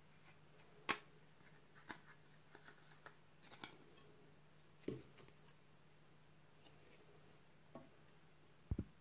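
Light plastic clicks and taps from a wireless charger's housing pieces being handled and pulled apart, coming irregularly: a sharper click about a second in, a few softer ones after, and a double knock near the end.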